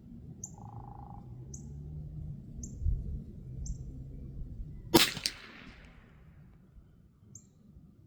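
A single shot from a Ruger American Long Range Target .22 LR rifle firing CCI Standard ammunition, about five seconds in: one sharp crack, with a fainter second crack a fraction of a second later.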